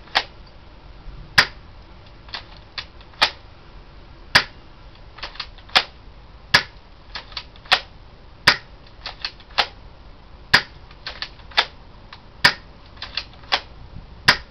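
An airsoft spring shotgun firing repeatedly: over a dozen sharp, snappy shots about one a second, with fainter double clicks between them.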